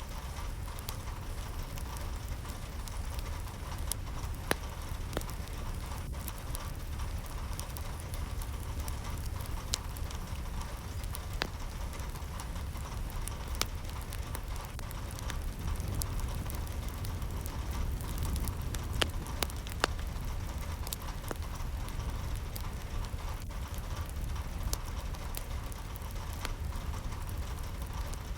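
Steady rain falling, with scattered sharper drop ticks throughout.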